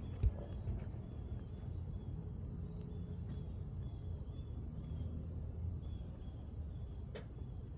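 Insects trilling in a steady high chorus, with faint short chirps repeating under it and a low rumble beneath. A thump comes just after the start and a sharp click about seven seconds in.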